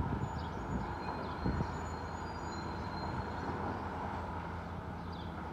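Demolition excavator's diesel engine running steadily while its grab works at the building, with a few knocks of breaking and falling rubble in the first two seconds.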